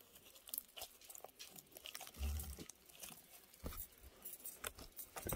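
Slime being squeezed and pulled by hand: faint sticky clicks and small crackling pops, with a couple of low thumps.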